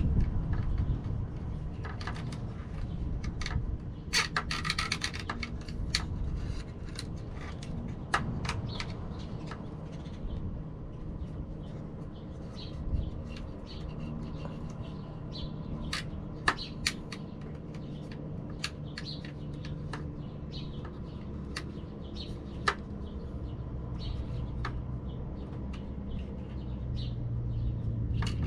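Nylon zip ties being fed through and ratcheted tight, a fast run of fine clicks about four seconds in, with scattered sharp clicks and taps from handling the fans and mount over a steady low hum.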